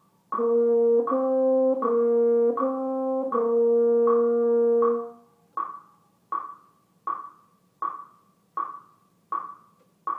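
French horn playing a C steps warm-up phrase: five notes stepping back and forth between two neighbouring pitches, one click each, the last held for about two seconds. A metronome clicks steadily throughout, about 80 beats a minute, and carries on alone for the second half, leaving the bars for the students to answer.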